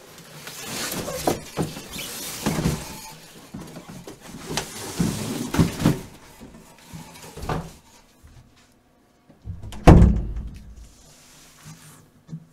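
A large ceramic set being unpacked and handled. Packaging rustles with scattered knocks for the first several seconds, then there are a few lighter clicks, and about ten seconds in comes one loud, heavy thump.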